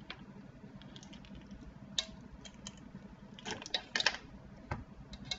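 Scattered light clicks and taps of kitchen utensils against a wire-mesh sifter over a mixing bowl as a teaspoon of salt is added, with a quick cluster of taps about three and a half seconds in and a soft thump near the end.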